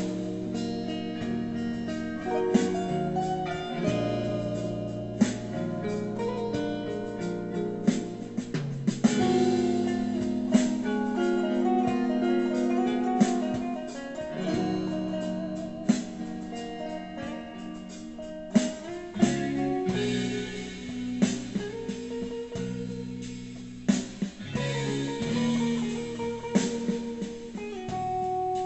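Electric guitar improvising a lead of picked single notes and held notes over a backing track, recorded through a phone's microphone.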